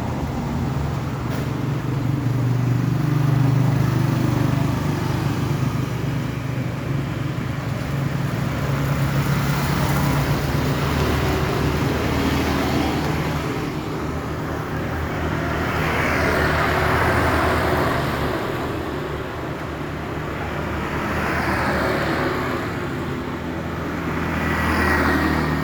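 Motor vehicle engine running steadily with road traffic noise, swelling several times as vehicles pass.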